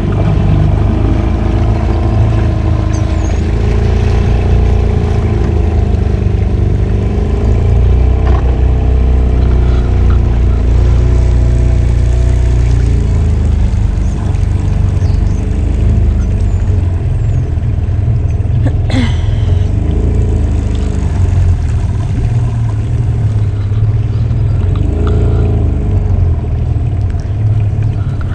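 A sailboat's motor running steadily under way, a heavy low rumble with a wavering engine note above it. A single sharp knock about nineteen seconds in.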